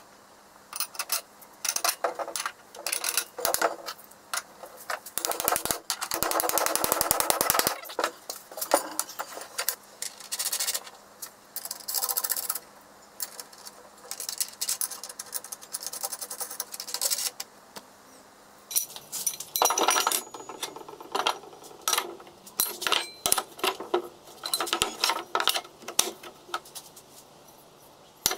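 Metal parts handled and set down on wooden boards: irregular clinks and knocks of a wheel hub, bolts and steel square tubing, with a brief fast rattling run about six seconds in.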